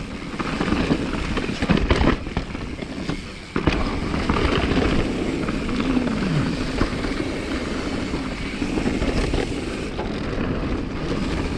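Mountain bike descending a rough trail at speed: steady tyre and riding noise with heavy wind rumble on the microphone, and sharp knocks from the bike over bumps, a loud one about two seconds in and another a little after three and a half seconds.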